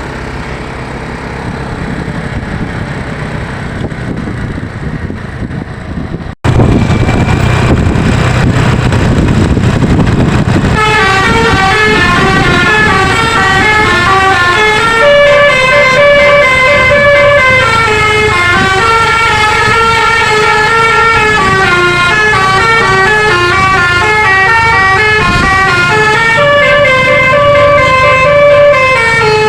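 Bus engine running, then a sudden break about six seconds in and a louder rumble. From about eleven seconds on, a bus's telolet basuri multi-tone air horn plays a melody, several pitches sounding together and stepping up and down in a tune.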